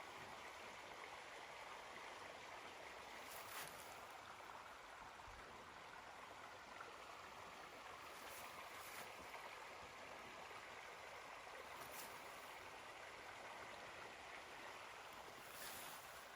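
Near silence: faint, steady outdoor hiss like distant running water, with a few soft brief clicks.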